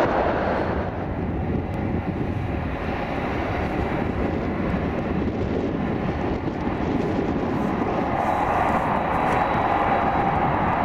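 Boeing 747-400's General Electric CF6-80C2 turbofan engines running as the jet taxis after landing: a steady jet rumble and hiss, with an engine whine growing louder over the last few seconds as the aircraft turns toward the listener.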